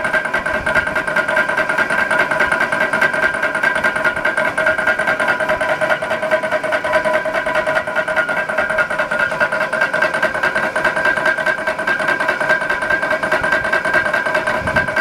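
Forge running with a steady rushing drone and a constant whine, unchanging throughout.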